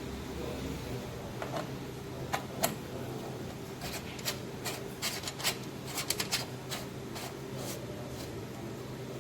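About a dozen light clicks and taps at irregular intervals, the sharpest two close together a couple of seconds in, over a steady low hum.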